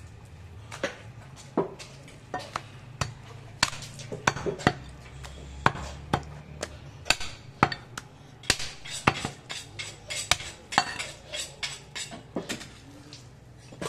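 Heavy meat cleaver chopping a goat leg, meat and bone, on a wooden log chopping block: a run of sharp, irregular chops. The chops are a second or so apart at first and come quickly from about halfway through.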